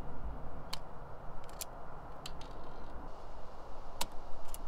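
Self-adjusting wire stripper clicking as its jaws grip and strip the insulation from 16-gauge marine wire: about seven short, sharp clicks at uneven intervals, the loudest about four seconds in, over a steady low background noise.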